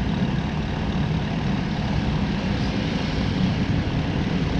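Steady low rumble of a bike being ridden slowly, dominated by wind buffeting the camera microphone.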